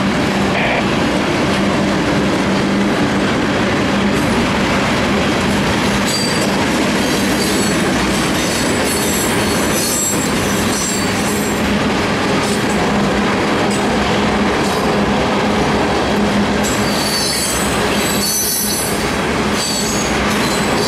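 Union Pacific freight train rolling past, a steady loud rumble of wheels on rail, with high wheel squeals about six seconds in and again near the end.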